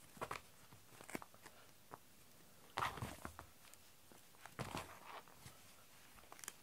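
A cat scrabbling and pouncing on a foam floor mat as it chases a string toy: soft scattered taps, with two louder scuffs about three and five seconds in.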